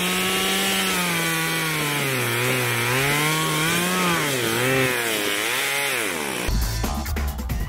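Two-stroke petrol chainsaw cutting a horse chestnut log at high revs, its engine pitch dipping and recovering several times as the chain bites into the wood. It cuts off abruptly about six and a half seconds in, giving way to music with a beat.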